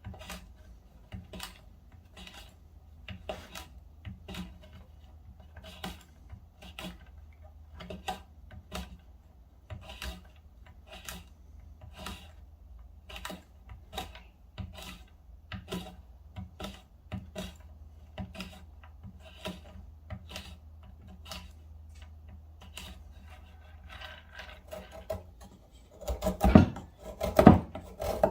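A folding knife's Wharncliffe blade cutting into hard wood in short repeated strokes, about two a second, with a few much louder, harder cuts near the end.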